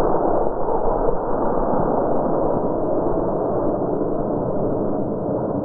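Model rocket launch on a D16 motor: a loud, steady, muffled rushing roar, with no high pitches at all.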